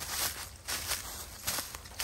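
Footsteps crunching and rustling through dry leaf litter, several uneven steps over a low steady rumble.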